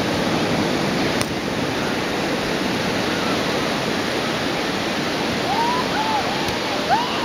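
Steady rushing wind on the microphone during outdoor kite flying. A few wavering, whistle-like notes come in near the end.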